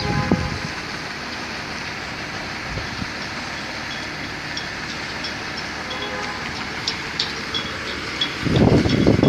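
Diesel truck tractor unit running at a distance as it manoeuvres, under a steady outdoor rush of noise. Near the end, gusts of wind buffet the microphone loudly.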